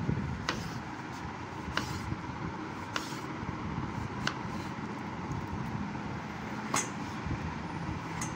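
Knife slicing ripe papaya on a wooden cutting board, the blade tapping the board about six times, roughly once a second, over a steady background hum.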